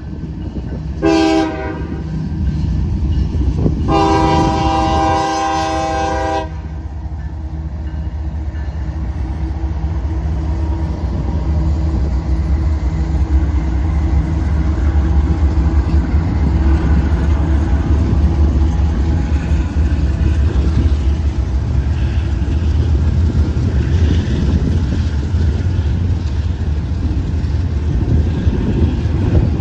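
A CSX diesel locomotive's air horn sounds one short blast and then a longer blast of about two and a half seconds. After the horn the train's low rumble carries on, slowly growing louder as it draws near.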